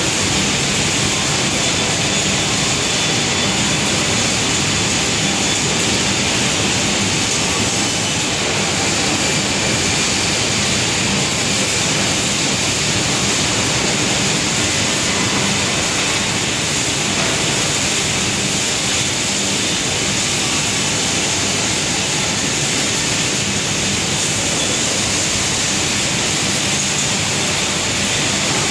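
Dust extraction plant running, its extraction fan giving a loud, steady rushing noise with a faint low hum underneath.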